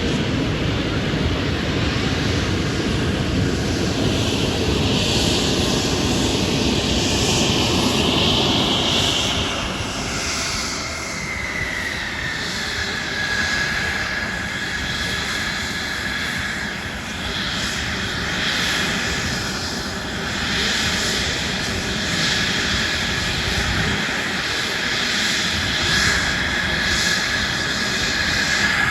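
Airplane engine in flight, a loud rushing roar at first that eases off, then a tone that slides down slightly about halfway through and holds steady.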